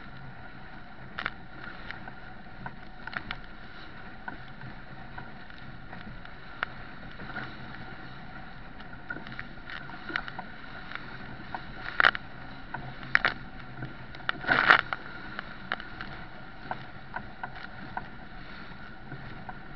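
Sailing yacht driving through rough sea: a steady rush of water and wind past the hull, with a faint steady hum underneath and irregular sharp slaps and knocks of waves against the boat, the loudest clustered about twelve to fifteen seconds in.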